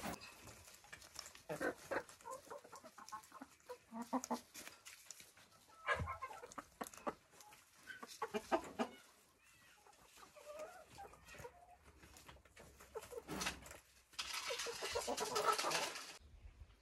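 Domestic chickens clucking in short, scattered calls. Near the end comes a louder, noisy sound lasting about two seconds.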